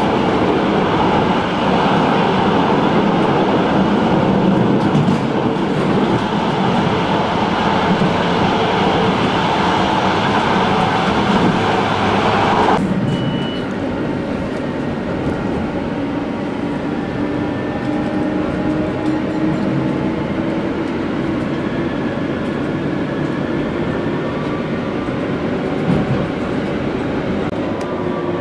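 Running noise inside an AnsaldoBreda Sirio light-rail tram moving along its track. About thirteen seconds in the noise drops abruptly to a quieter level, and faint whining tones rise and fall over it.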